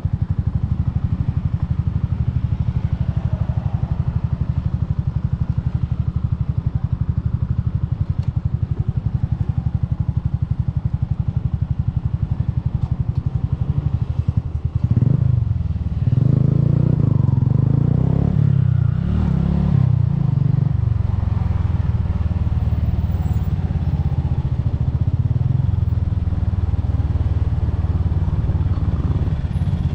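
Bajaj Boxer's single-cylinder four-stroke engine running steadily under way. About halfway through it gets louder for a few seconds, its pitch rising and falling, then settles back to a steady beat.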